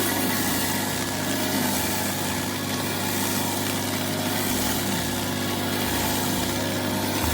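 Pressure washer engine running steadily while a flat surface cleaner sprays water over tarmac, a constant engine drone under a dense hiss.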